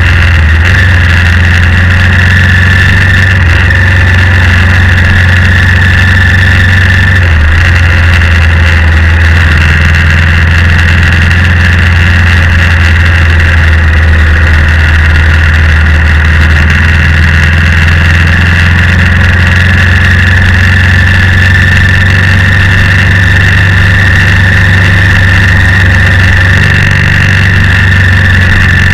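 BMW G650X's single-cylinder engine running at a steady, near-constant speed while the motorcycle is ridden.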